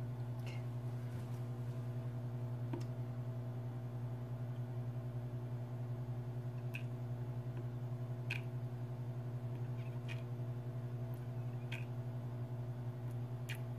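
A steady, low electrical hum, with a few faint, short ticks scattered through it.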